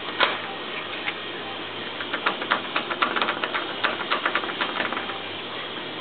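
Bump key being worked in a Schlage deadbolt cylinder: one sharp metallic click about a quarter second in, then a run of quick, sharp clicks and taps for about three seconds.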